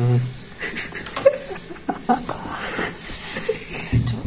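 Short bursts of laughter and strained vocal noises mixed with scuffling, with one sharp click about a second in.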